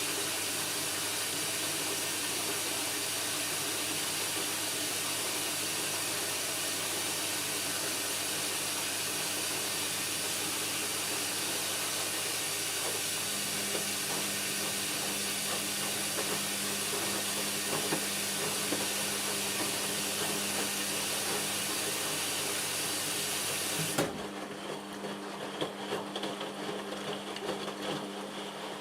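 Indesit washing machine running mid-cycle: a steady rushing noise over a low hum that cuts off abruptly near the end, leaving a quieter hum with a few light clicks.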